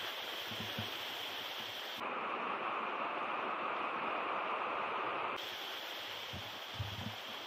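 Mountain stream rushing over cascades and small waterfalls, a steady rush. About two seconds in it switches suddenly to a louder, fuller rush for about three seconds, then drops back. Low wind gusts buffet the microphone briefly about half a second in and again near the end.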